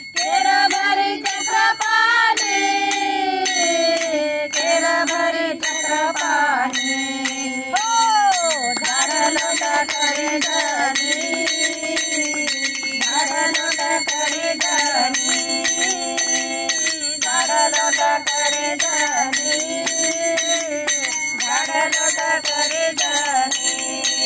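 Women singing a Marathi abhang, a devotional song, together, to brass hand cymbals (taal) struck in a quick, steady beat.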